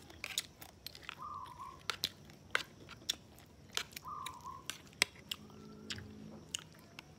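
Close-miked chewing with wet mouth clicks and smacks as a person eats rice and fish soup from a spoon. A short whistled note recurs about every three seconds, and there is a brief low hum around six seconds in.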